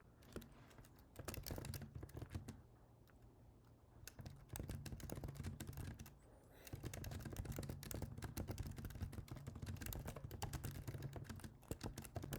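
Computer keyboard typing in quick runs of keystrokes, with short pauses about three seconds in and again about six seconds in.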